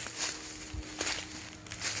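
A few irregular footsteps, short scuffing steps at uneven intervals.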